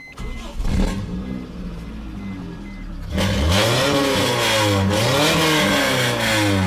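Geo car engine with an aftermarket dual exhaust, loud and deep. It starts up at the beginning and runs steadily, then from about three seconds in it is revved several times, the pitch rising and falling with each blip.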